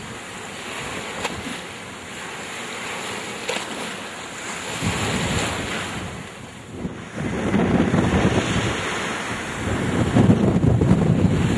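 Hurricane wind and storm-surge water rushing and churning. From about seven seconds in, heavy wind gusts buffet the microphone, louder and rumbling.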